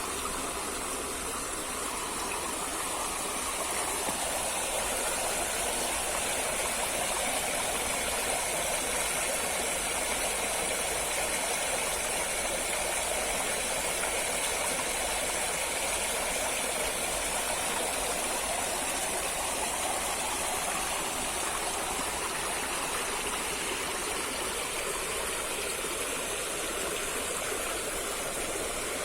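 Stream water running steadily, an even continuous rush.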